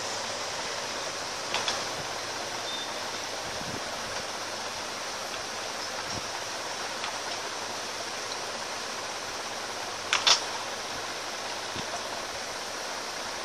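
Steady background hiss with a few light clicks of small phone parts and tools being handled on a workbench: one about a second and a half in and a quick double click about ten seconds in.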